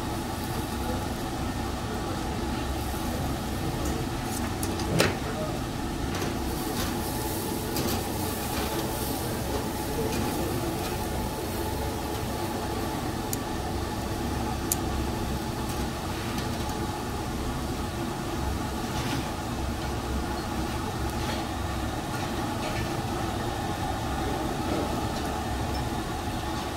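Steady hum and hiss of a charcoal table grill's overhead exhaust hood running, with faint background chatter. A single sharp metal click comes about five seconds in, with a few lighter ticks later.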